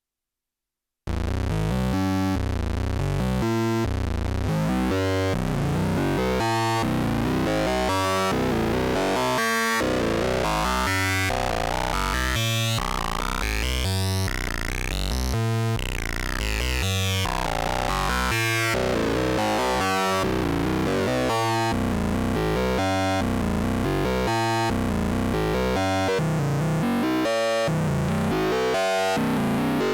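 Cre8audio Capt'n Big-O analog Eurorack oscillator playing a sequenced pattern of short repeated notes, with a bright, rich, wavefolded and driven tone. It starts about a second in, after a moment of silence.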